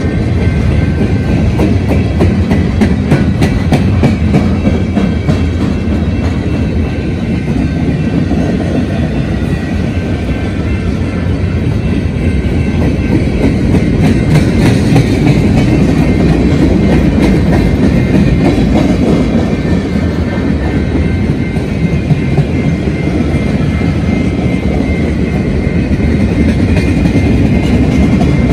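A freight train's empty intermodal cars rolling past at a steady speed, with a continuous heavy rumble of wheels on rail and clickety-clack over the rail joints. A grade-crossing bell rings steadily through it.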